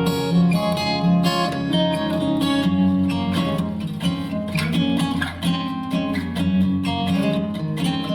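Acoustic guitar music, plucked and strummed, played back through a portable Bluetooth speaker.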